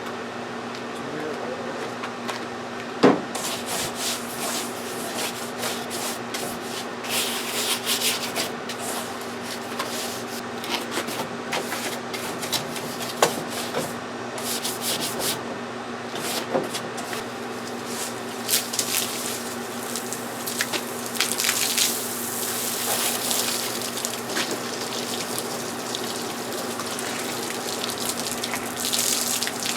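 Sanding by hand: irregular scratchy rubbing strokes over a steady low hum, with one sharp knock about three seconds in.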